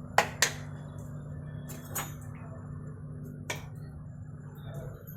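A few sharp clinks of kitchen utensils against cookware, two close together at the start, then one about two seconds in and another about three and a half seconds in, over a steady low hum.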